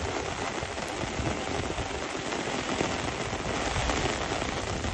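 Heavy rain pouring down on hard surfaces: a steady, dense hiss with a fine crackling patter and a low rumble beneath.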